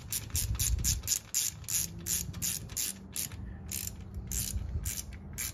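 Small hand ratchet clicking steadily, about four pawl clicks a second, as it snugs down an LS rocker arm bolt before torquing.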